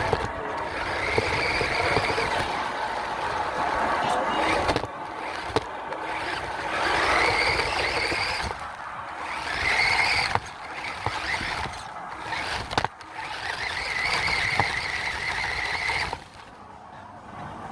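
RC truck's motor whining in several bursts of one to three seconds, rising and settling as it speeds up and slows down, over gravelly background noise.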